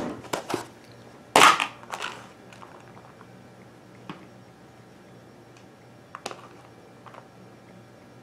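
Snap-on lid of a plastic food-storage container pulled off with a loud crackling pop, after some clicks of the container being handled. Then a few faint clicks as cold cooked rice is scooped out by hand.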